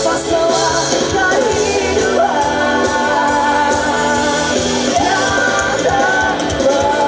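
A pop-rock song with a lead singer carried over a full band.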